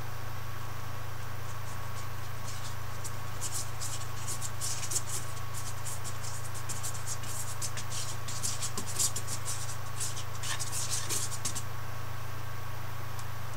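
Paintbrush scratching and scrubbing on canvas in a quick run of short strokes through the middle, over a steady low hum.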